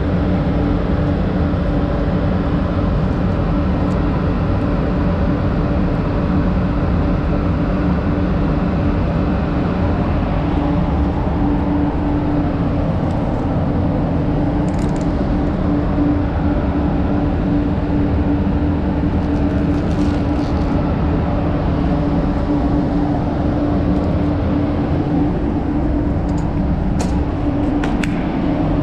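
Paint spray booth's ventilation fans running: a steady hum with a held low tone and even air noise, with a few faint ticks near the end.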